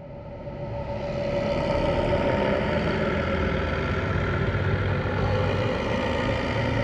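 Ghost growl sound effect: a low, rumbling growl with a held drone in it. It fades in over about the first second and a half, then holds steady.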